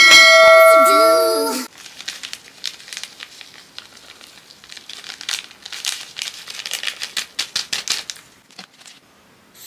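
Upbeat intro music ends on a loud held chord about a second and a half in. Then a small plastic sachet crinkles and rustles as it is handled and torn open by hand, in a run of irregular quiet crackles.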